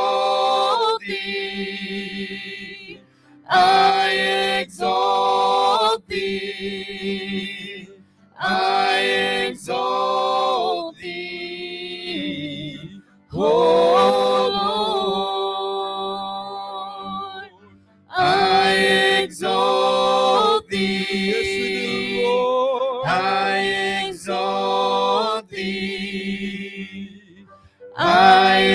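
A man and a woman singing a slow worship song together into microphones, in phrases of a second or two with short breaks, over sustained keyboard chords.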